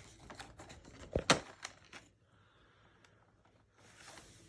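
Cardboard advent calendar door being pried open by hand: a run of small clicks and scrapes with a sharper snap about a second in, stopping about two seconds in.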